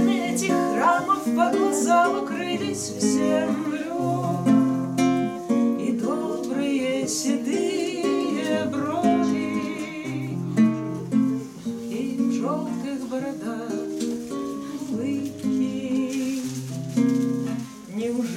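Two classical guitars playing together: picked melody and chord notes over bass notes that change about every one to two seconds.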